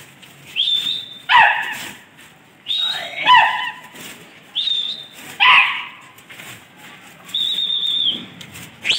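Several sharp, high whistles, each rising quickly and then held, alternating with short cries that fall in pitch: a pigeon flyer whistling and calling to his flock circling overhead.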